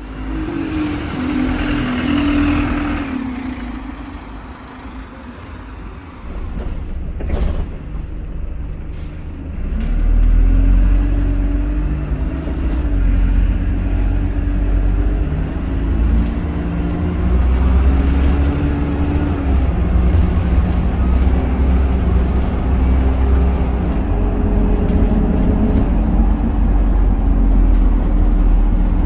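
Dennis Dart single-deck bus's diesel engine heard from inside the saloon, its note rising and falling again and again as the bus accelerates and changes gear. Quieter for a few seconds, then pulling harder with a heavy low rumble about ten seconds in.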